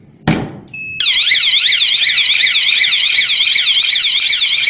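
The S120 GSM alarm panel goes into alarm after a zone is triggered. A sharp knock and a short beep come first, then a loud electronic siren warbles rapidly up and down without a break.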